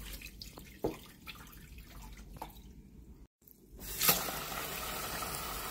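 Rinse water draining off a pot of rice into a stainless steel sink, then dripping in scattered drops. About four seconds in, the kitchen tap comes on and runs steadily into the pot of rice.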